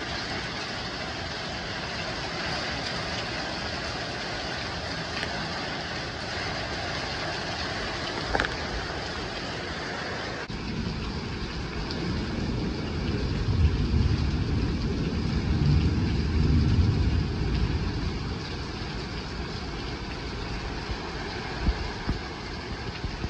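Heavy rain pouring steadily in a thunderstorm. About halfway through, a deep low rumble swells for several seconds and then eases back under the rain.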